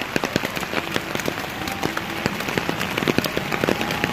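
Rain falling, with dense, irregular drops ticking close to the microphone over a steady hiss.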